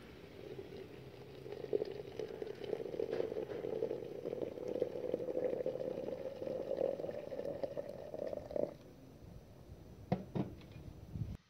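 Hot water poured in a steady stream into a glass teapot of dried flowers and leaves, the pitch rising slightly as the pot fills; the pour stops about three-quarters of the way through, followed by a couple of short clinks.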